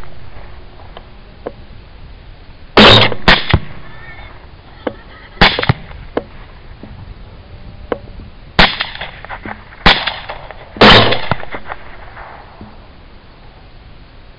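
Rifle fire from 6mm Grendel AR-15s: about six loud shots in quick, irregular succession between about three and eleven seconds in, each trailing off in a short echo. The echo of an earlier shot is still fading at the start.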